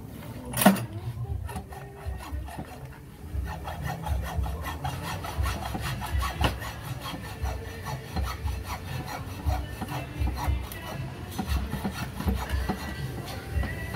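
Hand saw with a metal frame cutting across a wooden pergola beam in steady back-and-forth strokes. One sharp knock sounds about a second in.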